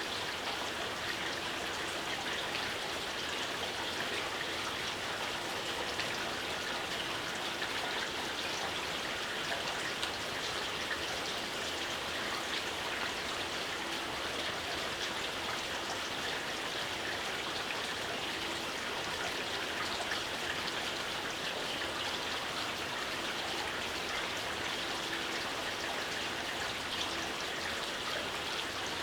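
Steady light rain falling: an even hiss scattered with the ticks of single drops, unchanging throughout.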